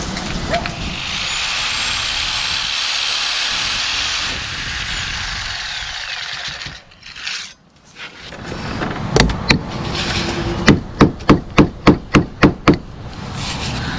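A power tool runs with a steady high whine, then winds down about five seconds in. After a short lull come hammer blows, one and then a quick run of about eight near the end, knocking the old rusted angle-iron lintel loose.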